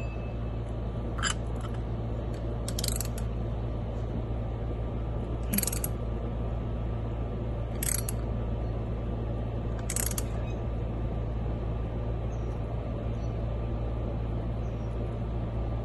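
New spin-on oil filter being screwed onto its mount by hand, with five brief high scrapes over a steady low hum.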